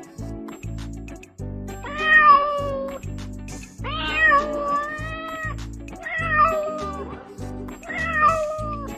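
Domestic cat meowing four times, the second meow long and drawn out, over background music with a steady beat.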